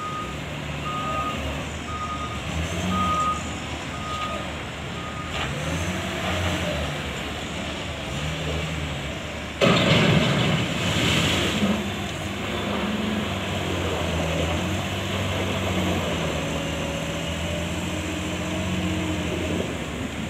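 Heavy vehicle's engine running and revving up and down while its reversing alarm beeps steadily about once a second, the beeping stopping about five seconds in. About ten seconds in there is a sudden loud rush of noise lasting a couple of seconds.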